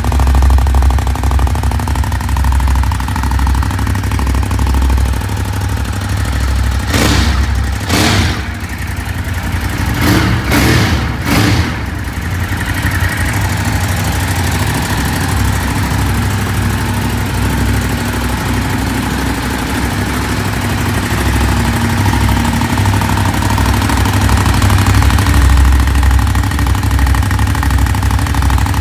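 A 2018 Ducati Monster 821's 821 cc Testastretta L-twin idling steadily through the stock exhaust, with a few short, sharp louder moments between about seven and twelve seconds in.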